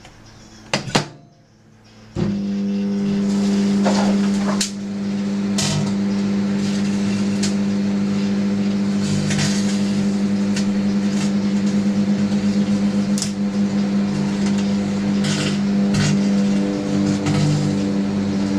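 Two clicks, then a microwave oven starts with a loud steady hum about two seconds in. Over the hum come about ten short sharp snaps and crackles, scattered irregularly: an old 10Base-T network card arcing inside.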